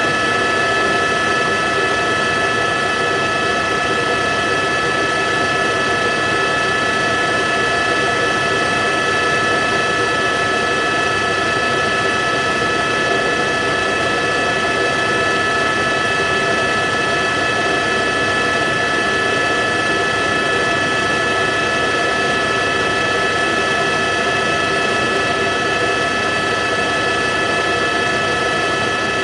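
Steady aircraft engine drone with several high, steady whining tones, heard from on board the aircraft.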